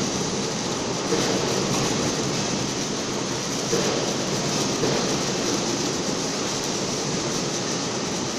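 Automatic hardfacing welding machine at work: a steady noisy hiss and rumble of the welding process and machine, with small irregular swells in level.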